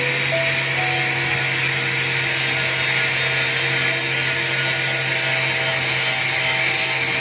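Small handheld angle grinder running steadily with its disc held against a metal edge. It makes an even, high-pitched grinding hiss without a break.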